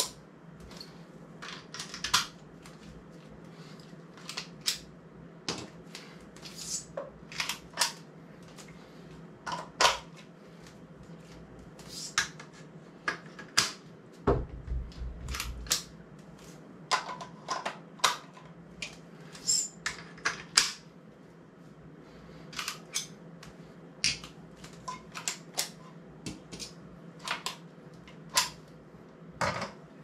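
Irregular clicks and clacks of camera gear being handled, as a camera is clipped on and off YC Onion Q1 quick-release mounts, with a dull bump about halfway through. A steady low hum runs underneath.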